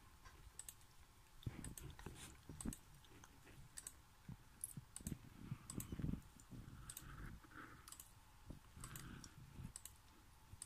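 Faint, scattered computer mouse clicks paging through photos, with a few soft low thumps between them.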